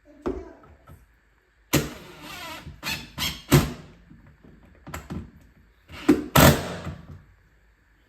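Screws being driven to mount blind brackets at a window: a string of short, sharp squeaky and scraping bursts at irregular intervals.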